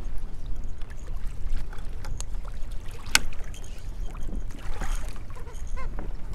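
Wind rumbling on the microphone and choppy water lapping against a kayak. There is one sharp click about three seconds in and a short run of light ticks near the end.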